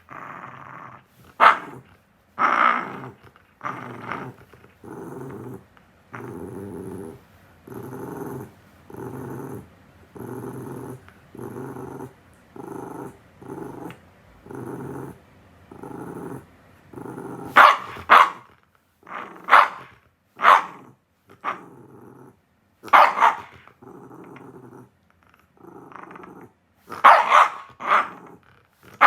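A dog growling in a steady run of short growls, about one a second, broken by sharp barks. The barks are loudest in a cluster a little past the middle and again near the end.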